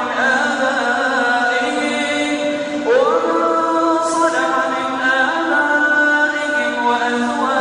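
Background vocal chanting in long held notes, with a rising slide about three seconds in.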